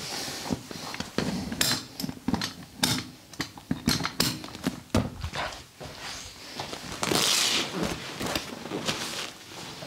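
Hands-on massage sounds: an irregular run of sharp slaps and pats on skin, with a brief hiss about seven seconds in.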